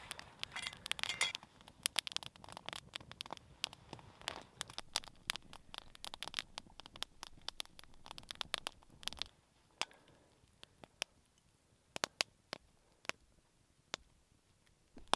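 Wood campfire crackling, with many sharp pops and snaps over a faint hiss for about nine seconds, then thinning to occasional pops.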